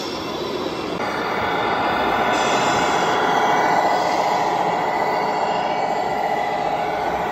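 Steady din of radio-controlled model trucks running, their motors and gearboxes whining, over crowd murmur echoing in a sports hall.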